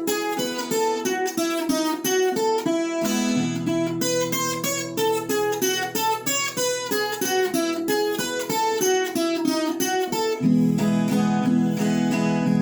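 Viola caipira playing a fast run of plucked melody notes over strummed chords, an instrumental interlude in a Brazilian country (música caipira) song; fuller low chords come in about three seconds in and again near the end.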